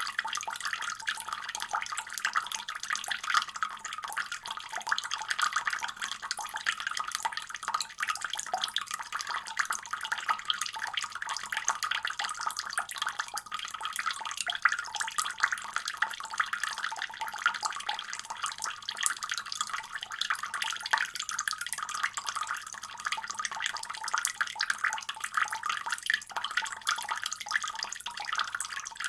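Water running steadily from a faucet: an even splashing hiss, mostly high-pitched with little low end.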